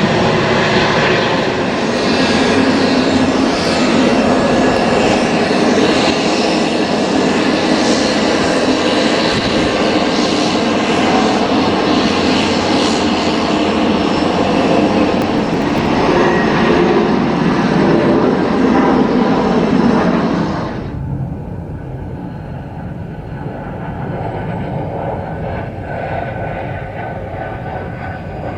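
American Airlines McDonnell Douglas MD-83 jet airliner going by, with the loud, steady noise of its rear-mounted Pratt & Whitney JT8D engines. About twenty seconds in the sound cuts off abruptly, leaving a quieter steady rumble.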